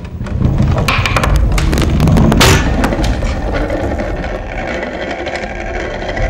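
Heavy mechanical rumbling with a quick run of clattering knocks and rattles from about one to three seconds in, loudest about two and a half seconds in, settling into a steady low rumble.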